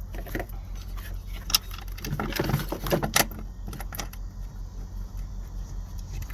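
Small metal clicks and rattles of a Torx bolt and hand tool being worked into the clutch switch mounting, with a sharp click about a second and a half in and a burst of rattling and clinks between two and three seconds, over a steady low hum.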